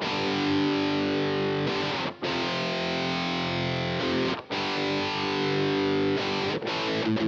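Harley Benton TE-20 Telecaster-style electric guitar strumming sustained chords through an amplifier. The chords are cut off briefly twice and struck again, and turn into quick choppy strums near the end.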